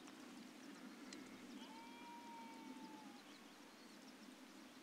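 Near silence: faint scattered bird chirps and, about two seconds in, one long, nearly level call from a distant animal.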